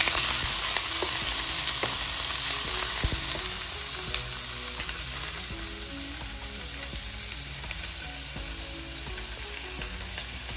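Food sizzling in a hot pan as it is stir-fried, a steady frying hiss that eases somewhat about halfway through, with a few light clicks.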